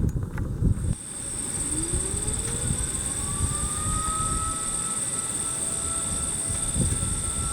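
Electromechanical outdoor warning siren winding up: its tone rises in pitch from about a second and a half in, then holds steady, over a low rumble and a thin high whine.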